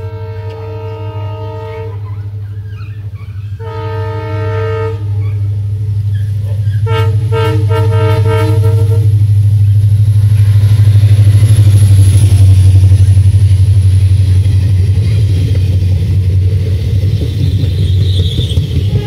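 Diesel locomotive (an EMD WDP4) sounding its horn in three blasts over the first nine seconds as it approaches, the last one the longest. Its low engine drone builds to a peak about twelve seconds in as the train passes, followed by the rush of the train running by.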